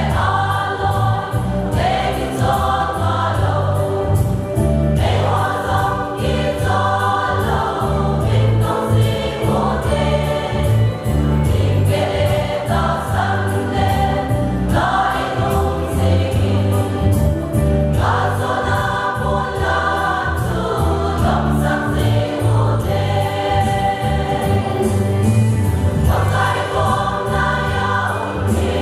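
A choir singing a gospel hymn over a band accompaniment with a strong bass line and a steady beat. Each sung phrase starts every three seconds or so.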